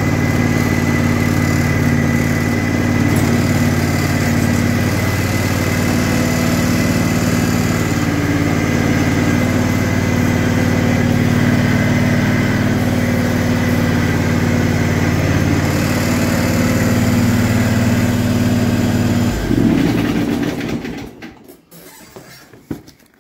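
Kawasaki FR651V 22 hp V-twin engine of a ride-on mower running at a steady speed while the mower is driven, then shut off near the end, leaving only a few faint knocks.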